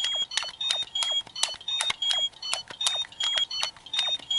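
Legendary Morpher toy's keypad buttons being pressed over and over, each press a plastic click and a short high electronic beep from the toy's speaker, about two or three a second. The working number keys all give the same beep, as they act as one button.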